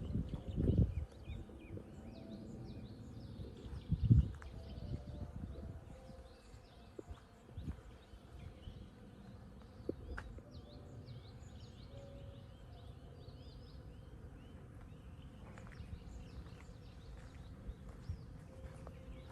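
Several small birds chirping and singing, with many short high calls overlapping throughout. Low thumps and rustles sound beneath them near the start, the loudest about four seconds in.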